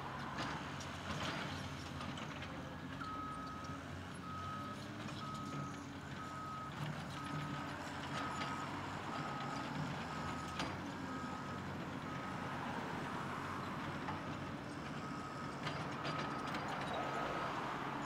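Bulldozer's backup alarm beeping steadily, a single-pitch beep repeating a bit more than once a second, starting about three seconds in and stopping near the end, as the dozer reverses. Underneath is the steady diesel drone of the dozer and a Caterpillar 330D L excavator digging dirt, with occasional knocks.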